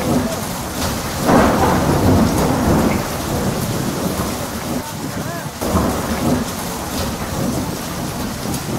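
Thunderstorm: steady heavy rain with deep rumbling that swells about a second in and again around six seconds in.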